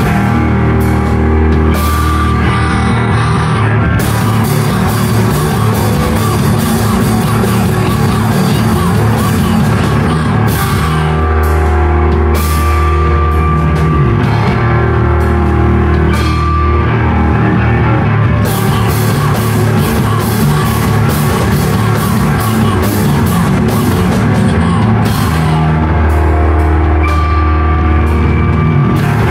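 A rock band playing live and loud, with a drum kit driving it, and no break in the music.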